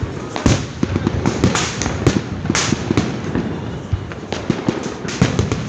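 Fireworks going off in rapid succession: dense crackling with frequent sharp bangs, several louder reports standing out among them.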